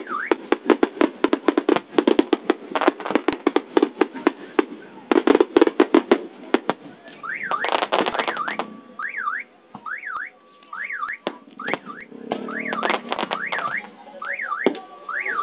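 Fireworks going off: a rapid string of sharp bangs for about the first seven seconds, then fewer bangs mixed with repeated short whistles that rise and fall in pitch.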